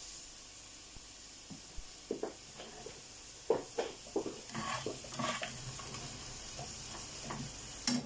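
Seafood, onion and cherry tomatoes sizzling steadily in a non-stick frying pan, with a spatula scraping and knocking against the pan in short strokes as the mixture is stirred, mostly in the middle stretch and again near the end.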